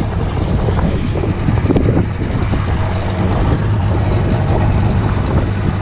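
Outboard motor of a Zodiac inflatable boat running steadily under way, a constant low hum under a rush of wind and water noise.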